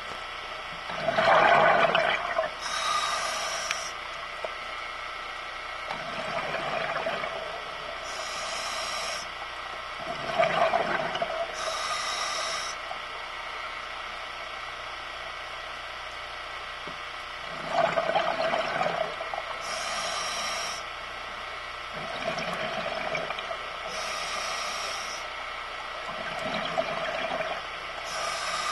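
Scuba diver breathing through a regulator underwater: each exhalation comes out as a burst of gurgling bubbles, alternating with the hiss of the regulator on each inhalation, about six breaths with a pause in the middle.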